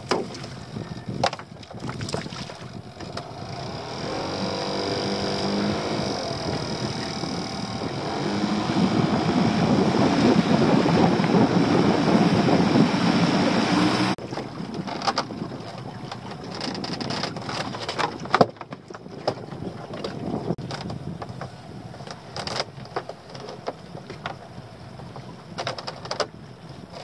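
Small outboard motor speeding up, its pitch rising, then running steadily under way; the sound cuts off suddenly about fourteen seconds in. Before and after it come scattered knocks and rattles from crab-pot ropes being hauled and handled on the boat.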